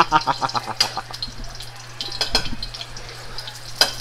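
Garlic cloves sizzling in hot oil in a wok, stirred with a metal spatula that clicks and scrapes against the pan. A short, squeaky pitched sound comes in the first second.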